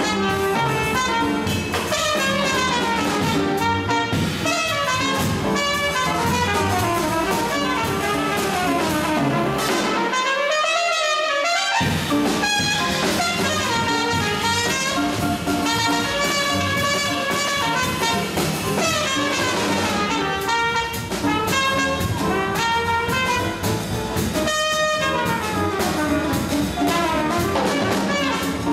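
Small jazz combo playing live: a trumpet soloing over upright bass and drum kit. About ten seconds in, the bass and drums stop for around two seconds and the trumpet plays alone before the band comes back in.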